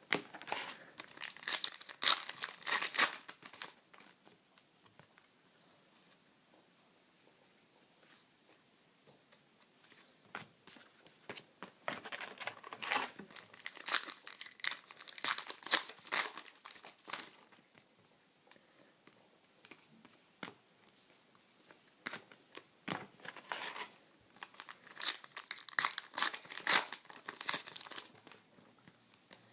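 Trading card pack wrappers being torn open and crinkled in three bouts, with softer rustling of cards being handled between.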